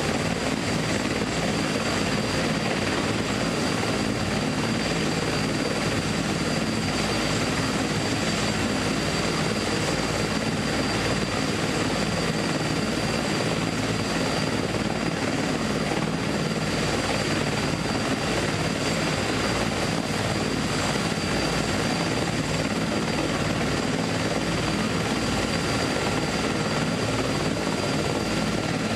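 Steady mechanical drone and rush, heard from inside a stationary car's cabin, with a few faint high whining tones on top; it holds even throughout with no change in pitch or level.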